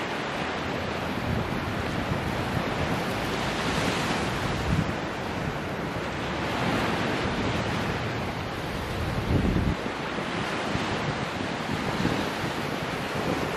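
Gulf of Mexico surf washing and breaking on the beach, a steady rushing hiss, with wind buffeting the microphone in low gusts, the strongest about nine seconds in.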